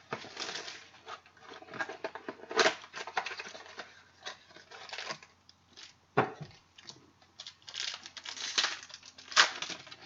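A trading-card pack wrapper crinkling and tearing as it is opened, with the cards rustling against each other; irregular crackling with a few sharper snaps.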